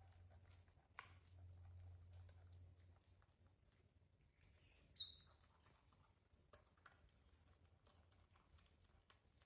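Small bird chirping twice, two short high-pitched notes falling in pitch about halfway through, over a low steady hum with scattered faint clicks and one sharp click about a second in.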